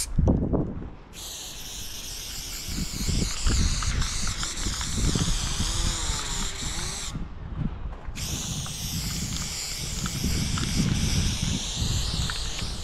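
Aerosol spray paint can hissing in long sprays, with short breaks where the nozzle is released, once just after the start and again about seven seconds in.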